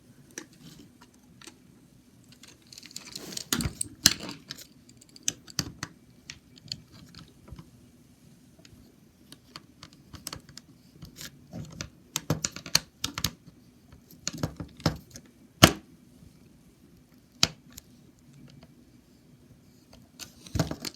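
Irregular small clicks and taps of hard plastic and a screwdriver as the battery compartment of a toy train's remote control is unscrewed and opened.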